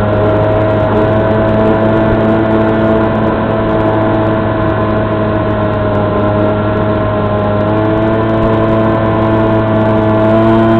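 E-flite Opterra flying wing's electric motor and propeller running at a steady throttle: a continuous hum whose pitch shifts slightly about eight seconds in.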